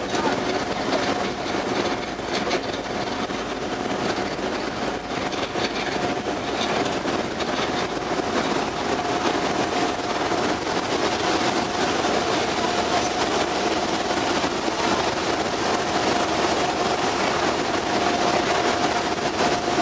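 Steady running noise of a ferry under way: a broad, even rushing din from engines and water with a constant hum through it.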